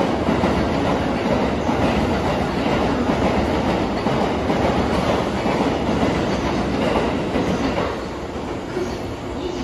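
A train running on a nearby station track: a steady rumble with wheels clattering on the rails, easing off about eight seconds in.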